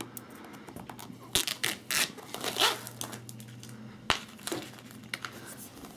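ZAGG invisibleSHIELD plastic screen-protector film being picked up at the corner with a fingernail and peeled off an iPad's glass screen, crackling and tearing in a handful of irregular bursts, with a sharp click about four seconds in.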